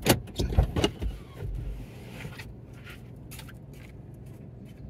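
Low, steady rumble of a car cabin as the car rolls slowly, with a few sharp clicks and knocks in the first second.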